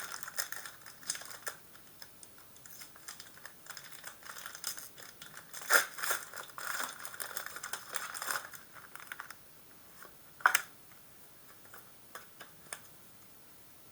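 Pokémon booster pack and trading cards being handled: a run of light clicks, crinkles and sliding rustles, busiest in the middle, with two sharper crinkles, one about 6 seconds in and one about 10 seconds in.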